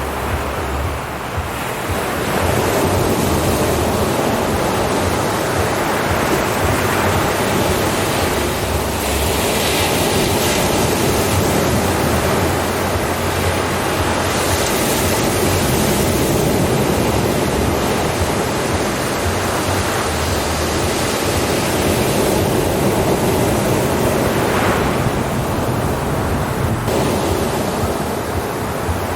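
Ocean waves breaking and washing on a shore in a steady rushing surf, swelling in a few seconds in.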